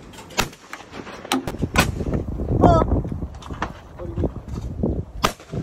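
Shotgun shots at a sporting clays range: several sharp reports a second or more apart, the loudest near the middle.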